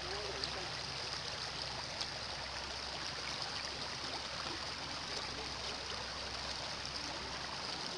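Steady rush of shallow river water running, with no distinct splashes.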